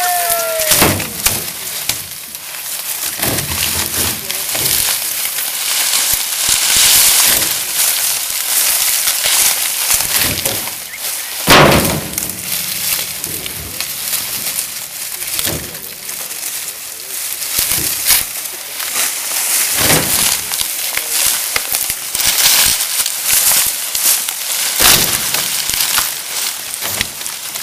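Dry, cut sugarcane stalks rustling and crackling as they are handled and piled onto a loading cart. Sharp snaps and knocks come every few seconds, the loudest a little before the middle.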